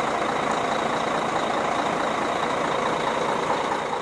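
Bus engines idling, with a steady hiss of falling rain. The sound falls away near the end.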